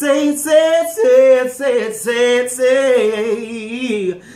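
A man singing a cappella in a gospel style, holding long wordless notes that slide between pitches, with a strong vibrato on the last note.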